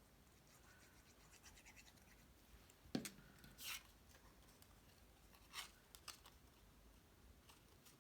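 Faint scratching and rubbing of card stock being handled, with a sharp tap about three seconds in and a few short rubs and ticks after it.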